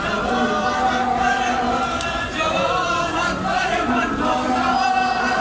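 Many men's voices chanting a noha (Shia lament) together.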